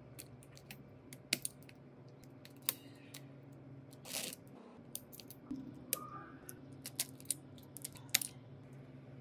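Small repair tools and phone parts clicking and tapping on a workbench during a smartphone teardown: scattered sharp irregular clicks, with a short rushing noise about four seconds in, over a steady low hum.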